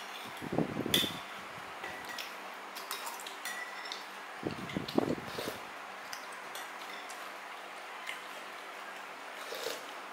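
Eating sounds: light clinks of a spoon against a dish, a couple of them ringing briefly, with two short low bursts close to the microphone, over a steady faint hum.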